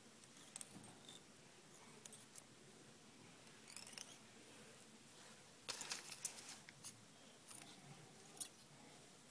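Faint, scattered clicks and light rustling from hands handling a cork popper lure clamped in a vise, with a quick cluster of clicks about six seconds in and one sharper click near the end.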